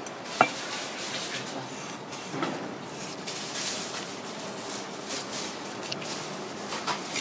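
A large knife cutting along the back of a whole grouper on a plastic cutting board, the blade scraping through the scales and flesh as the fillet is opened. There is a sharp knock about half a second in.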